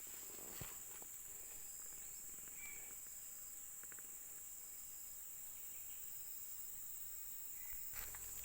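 Steady high-pitched drone of forest insects, with a few faint short chirps, a single knock about half a second in, and a rustle near the end.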